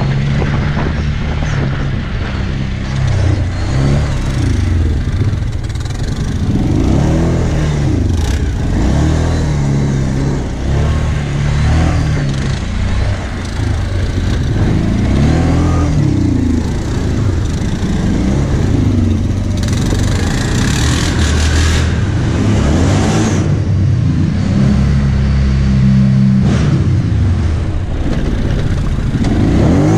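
Kawasaki Brute Force 750 ATV's V-twin engine under load, its pitch rising and falling over and over as the throttle is opened and eased. A hissing rush joins it around twenty seconds in.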